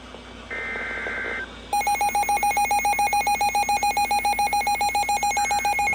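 Short bursts of two-tone digital data, the SAME end-of-message code that closes a NOAA Weather Radio warning. From about two seconds in, a loud, rapidly pulsing electronic alert tone takes over and runs almost to the end, overlapped near the end by another short data burst.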